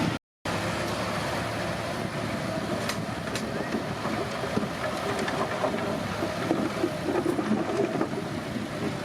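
Komatsu D31P bulldozer running steadily under work, with a few sharp clanks. The sound cuts out completely for a moment just after the start.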